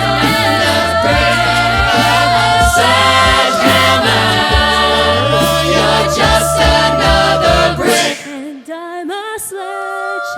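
A cappella ensemble singing layered, sustained chords over a sung bass line and vocal percussion beat. About eight seconds in, the bass and percussion drop out, leaving the upper voices holding softer chords.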